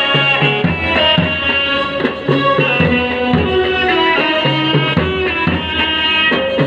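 Procession band playing a melody with held pitched notes over steady drumming, with large bass drums beating the rhythm.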